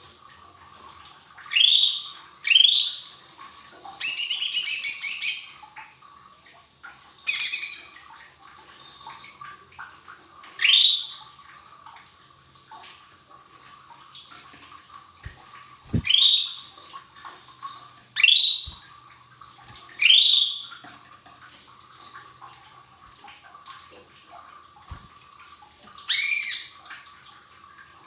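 Cucak ijo mini, a small green leafbird, calling in short sharp notes that swoop down in pitch, repeated every couple of seconds. Two longer scratchy, chattering phrases come about four and seven seconds in. A faint steady hum lies underneath.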